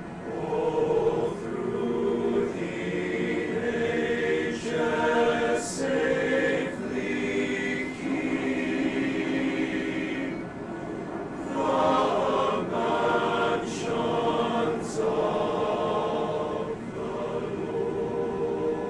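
A large male choir singing in harmony, in sustained phrases with a short pause between phrases about ten seconds in.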